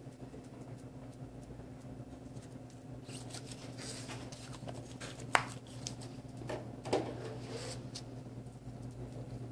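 Small plastic clicks and taps as a filled vacuum blood-collection tube is pulled from the needle holder and a fresh one is pushed on, with one sharp click a little past halfway and a softer one about two seconds later, over a steady low hum.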